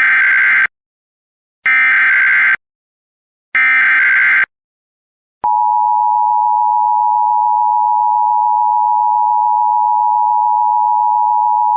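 Emergency Alert System header: three short bursts of SAME digital data tones, each about a second long and evenly spaced, then the EAS two-tone attention signal (853 and 960 Hz together), a steady harsh dual tone held from about five seconds in.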